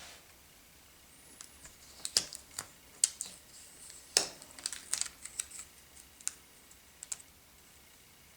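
Irregular small plastic clicks and taps with light rustling from hands working a laptop's LCD ribbon cable and its connector. The clicks start about two seconds in and die away near the end.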